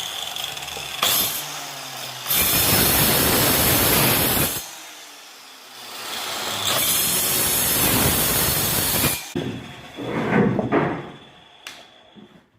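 A power tool working wood in two long passes of a few seconds each, with a quieter stretch between them, followed by a few knocks and a sharp click near the end.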